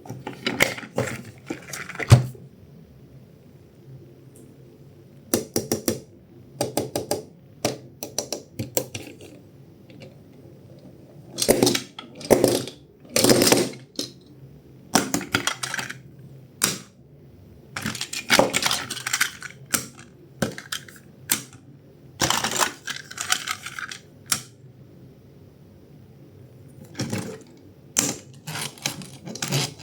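Hard plastic toys being handled, clicking, rattling and scraping in irregular clusters of sharp clicks with short quiet gaps between them.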